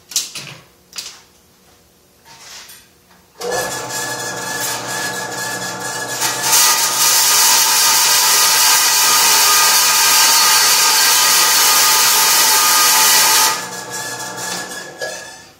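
Vertical bandsaw cutting a strip of 16-gauge sheet steel to length. After a few clicks as the strip is handled, the saw motor starts about three and a half seconds in. The blade bites into the steel about six seconds in with a loud, high hiss that ends near thirteen and a half seconds, and the saw keeps running more quietly afterwards.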